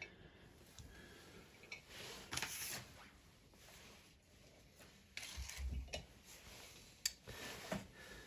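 Faint handling of a small dimple lock and metal tools: a few brief scrapes and rustles, with one sharp click near the end.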